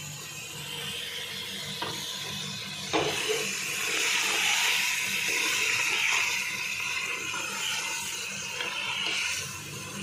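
Mutton frying in oil (the bhuna stage, after the meat's water has dried off) as it is stirred with a wooden spoon in an aluminium pot. A knock about three seconds in, then a steady sizzling hiss.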